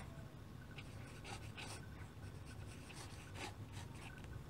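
Pen scratching faintly across paper in short, irregular strokes as a signature is written, over a faint steady low hum.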